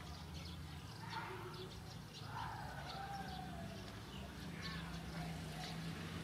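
A few short, high animal calls that glide in pitch, the longest a falling call about two and a half seconds in, over a steady low hum.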